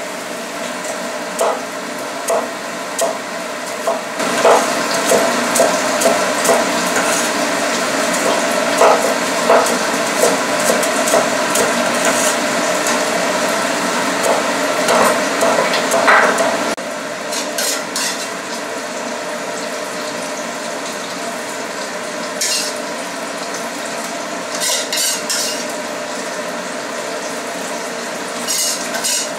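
Tomato sauce sizzling in a wok on a gas stove, with a run of cleaver knocks on a wooden cutting board through the first half, then a few sharp clinks of a metal ladle against the wok near the end.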